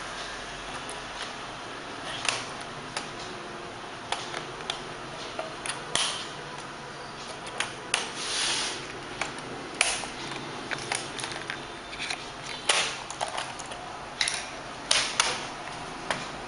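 Scattered sharp clicks and taps of a laptop's plastic casing being pried and handled, with a short scraping rustle about eight seconds in.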